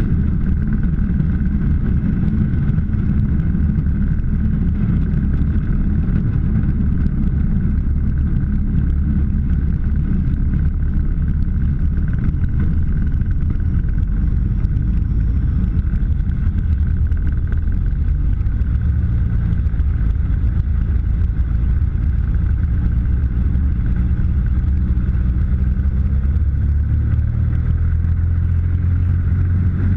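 Turbocharged Subaru EA81 engine of a Dragonfly Mark II, driving a three-blade Warp Drive propeller, heard from inside the cockpit, running steadily. Near the end its pitch starts to rise slowly.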